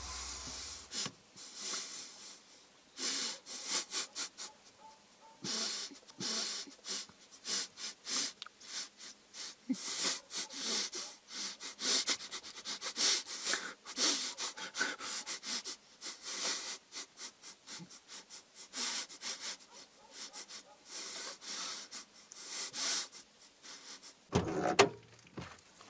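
A man breathing heavily and unevenly, ragged breaths coming once or twice a second. Near the end a louder thud breaks in.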